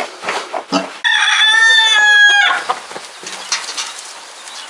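A rooster crowing once, starting about a second in: one long call, falling slightly in pitch at the end.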